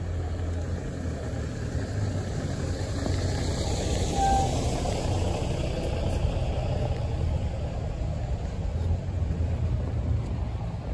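Tour bus driving past close by: its engine's low hum runs steadily, and the passing noise swells to a peak about four seconds in.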